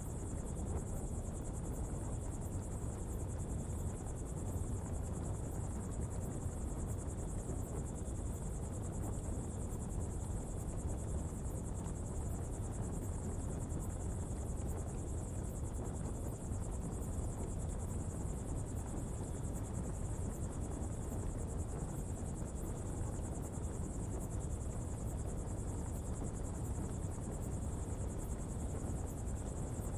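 Steady low rumble and hiss of an open coal fire burning during a pottery firing, with a constant high insect chirring, like crickets, over it.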